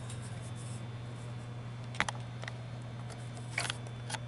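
A few light clicks over a steady low hum: one sharp click about two seconds in and a small cluster of them near the end.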